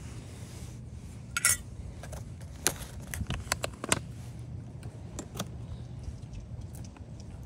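Sharp clinks and clicks of a spoon and small containers being handled. The loudest comes about a second and a half in, then a quick cluster follows around three to four seconds. Under them runs a steady low rumble of wind on the microphone.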